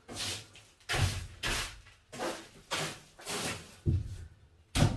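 A broom sweeping dried rat droppings and debris across the floor of an old bus: about eight scraping strokes, roughly one every half second, some starting with a low knock as the broom meets the floor.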